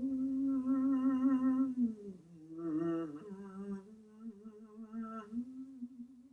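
A woman humming a warm-up before chanting. She holds a few long notes with a slight waver, dropping lower about two seconds in and climbing back up near the end.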